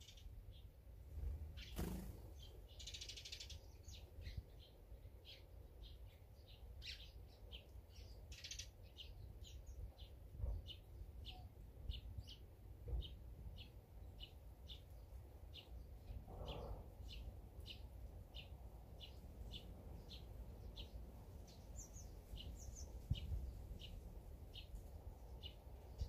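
A small bird chirping over and over: short high chirps at an even pace of about one and a half to two a second, with a couple of brief noisy bursts early on the way, over faint low background noise.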